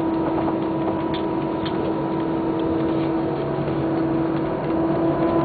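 Airbus A319's jet engines heard from inside the cabin over the wing, running at low power as the airliner moves along the ground before takeoff: a steady hum of several tones over a rushing drone. Near the end the tones step slightly higher and it gets a little louder as power begins to come up.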